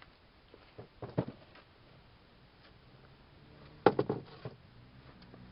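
Parts of a Wilton vise being handled on a workbench: a few light knocks about a second in, then a louder cluster of quick knocks and clatters about four seconds in.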